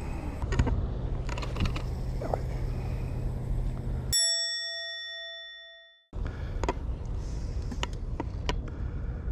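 A single bright bell-like ding, dropped in as an edited chime over a cut to total silence, about four seconds in; it rings and fades away over about two seconds. Before and after it, outdoor background noise with scattered clicks, and a low steady hum in the first part.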